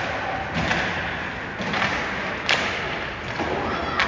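Ice hockey play: a few sharp knocks of stick, puck or boards, the loudest about two and a half seconds in, over steady arena background noise.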